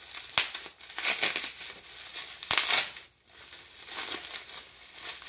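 Plastic bubble wrap being crinkled and pulled apart in the hands, with two sharp snaps, one just after the start and one about two and a half seconds in.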